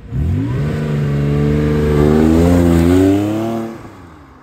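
Porsche 911 (997.1) naturally aspirated flat-six accelerating past, its engine note climbing in pitch and loudest as the car goes by, then dropping in pitch and level near the end as it pulls away.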